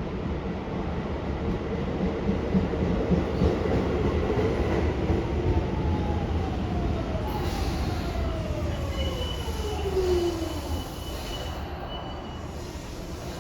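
Toei 10-300 series subway train's Mitsubishi IGBT-VVVF inverter and induction traction motors whining in a falling pitch over the rumble of the wheels as the train slows. A thin high squeal joins near the end, and the running noise drops as the train comes to a stop.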